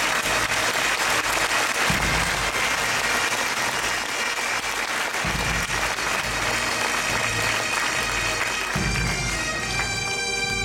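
Massed marching bands playing a held wind-instrument chord over audience applause, with deep drum booms every three to four seconds. The applause thins near the end and the band's notes come through more clearly.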